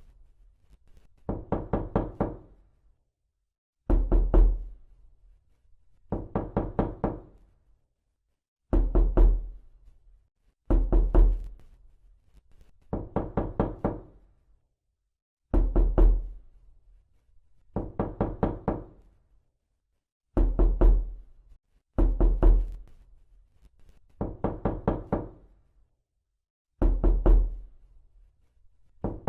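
Knocking on a door in repeated bursts of three or four quick raps, about one burst every two seconds. The bursts alternate between heavier and lighter knocks.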